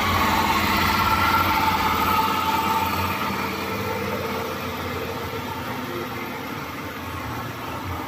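Amusement-park ride machinery running: a steady mechanical rumble with a low hum and a few held whining tones, easing about three seconds in.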